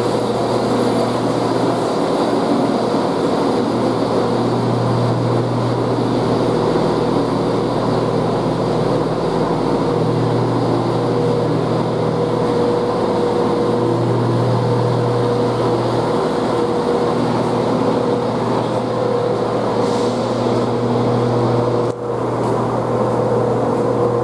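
Chiltern Railways Class 168 diesel multiple unit's underfloor diesel engines idling with the train standing at the platform: a steady low drone that swells gently every few seconds, with a brief break near the end.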